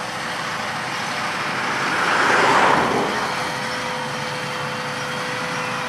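John Deere tractor running while pulling a planter, its engine and machinery noise rising to a peak about halfway through and then easing off, with a steady whine in the second half.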